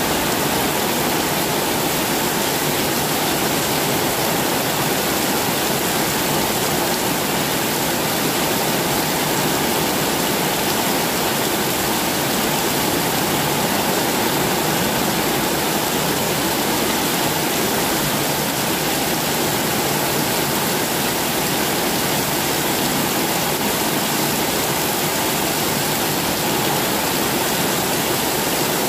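Heavy rain falling in a steady, dense downpour, with water pouring off roof edges onto the paved ground.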